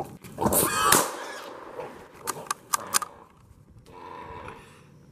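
Wild hog squealing loudly for about half a second, followed by a few sharp clicks as it thrashes after being shot in the head with a .17 HMR.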